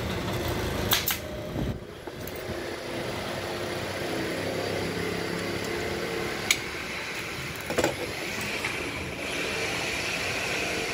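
Sharp snaps of a pneumatic upholstery staple gun driving staples through fabric into a wooden sofa frame: one about a second in, then a few more past the middle. A steady mechanical hum runs underneath.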